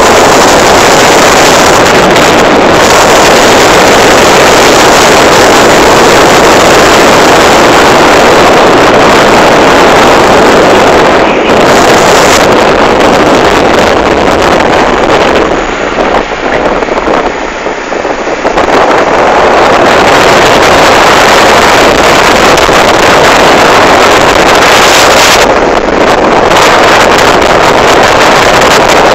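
Wind rushing loudly over the microphone of a moving motorcycle, mixed with the motorcycle's engine running. The rush eases for a few seconds a little past the middle, then returns.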